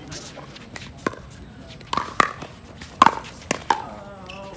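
Pickleball paddles striking a hard plastic pickleball in a rally: a string of sharp pocks, several in quick succession from about two seconds in. A player's voice is heard briefly near the end.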